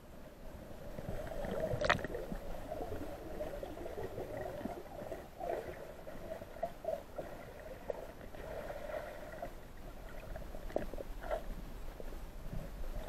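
Muffled underwater noise heard through a camera housing: water moving and bubbling around the camera, with a sharp click about two seconds in and scattered smaller ticks.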